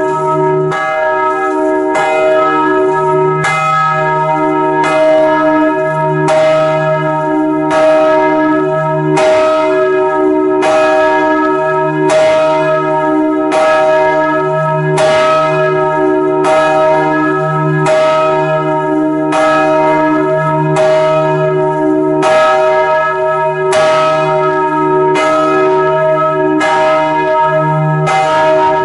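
Storkyrkan's swinging bronze church bells ringing loudly, heard from inside the bell tower. Clapper strikes come a little under a second apart over a steady wash of overlapping, lingering bell tones.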